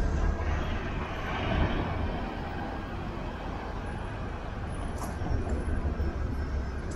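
Street ambience dominated by the steady rumble of passing road traffic, with a short click about five seconds in.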